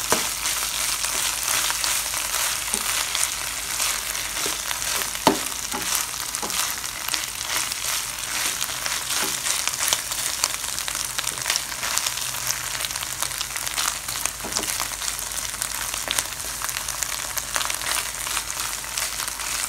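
Diced pork frying in oil with shrimp paste (bagoong) in a pan: a steady crackling sizzle. A spatula stirs it, with occasional sharp clicks against the pan, the sharpest about five seconds in.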